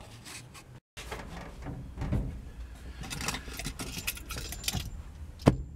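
Light metallic clinking and rustling of hand tools and parts being handled inside a pickup cab, with one sharp knock near the end.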